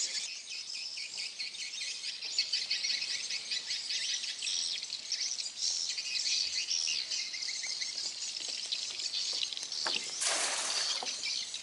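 A dense, steady chorus of high chirping from insects and birds. About ten seconds in, a short rushing splash as a thrown cast net lands on the water.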